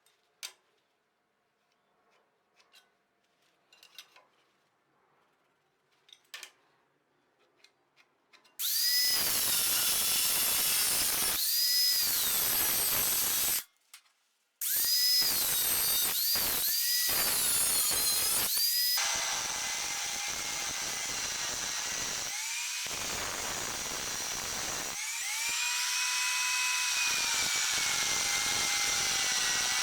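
A few light clicks and knocks of metal parts being handled, then about eight seconds in a handheld electric power tool starts up and runs in several spells with short stops, its motor pitch rising as it spins up and falling as it slows, steadier in the second half.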